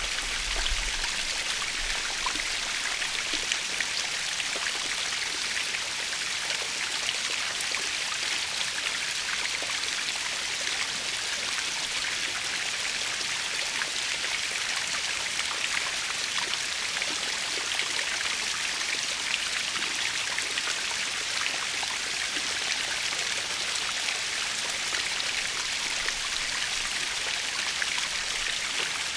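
Natural waterfall: water falling and splashing in a steady, even hiss that sits high and bright, with little low rumble.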